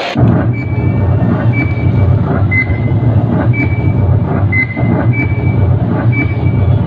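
Loud dance music over a hall's PA speakers, starting abruptly, with a heavy bass and short high synth notes about once a second.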